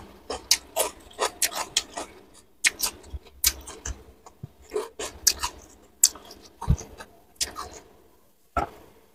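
Close-up eating sounds: raw cucumber being bitten and chewed, a run of crisp, irregular crunches several times a second, with one last crunch near the end.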